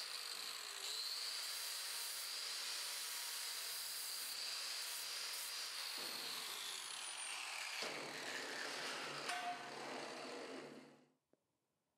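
Angle grinder with an abrasive disc chamfering the edge of thick-walled steel tube: a steady high whine over a grinding hiss. Later the whine slowly falls in pitch as the grinder winds down, and the sound cuts off shortly before the end.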